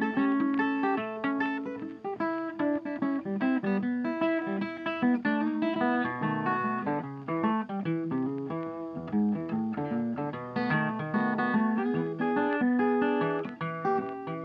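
Background music: a plucked acoustic guitar playing a quick run of notes.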